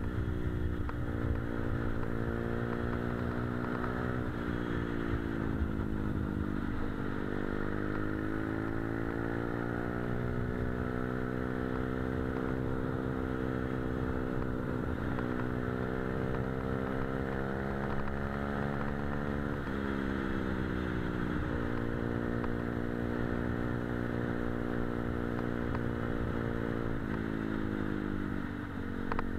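Motorcycle engine heard from on board while riding, its pitch climbing steadily then dropping sharply several times as the rider works the throttle and gears, over a steady rush of wind and road noise.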